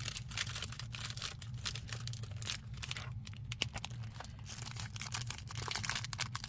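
Sheets of vellum paper being handled and leafed through, rustling and crinkling in a quick, irregular series of short crackles.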